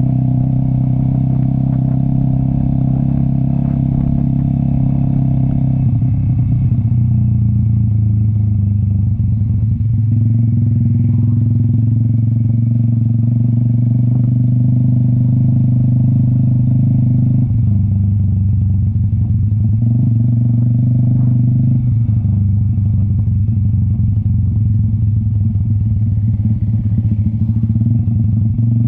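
Cafe 400 motorcycle with an SC Project aftermarket exhaust running under way uphill, a steady engine note that shifts pitch in steps several times as throttle and gears change.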